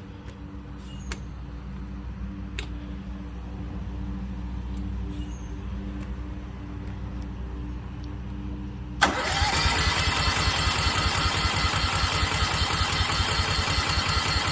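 Westinghouse 20,000-watt portable generator's engine being started on freshly primed fuel: a low, steady hum that slowly grows louder for about nine seconds. Then the engine suddenly catches and runs loudly and evenly.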